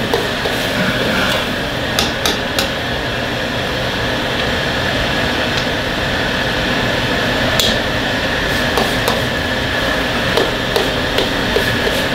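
Gas wok burner running at full flame under vegetables sizzling in a wok, a steady loud noise, while a metal ladle scrapes and knocks against the wok in short clanks: a few near the start and a run near the end.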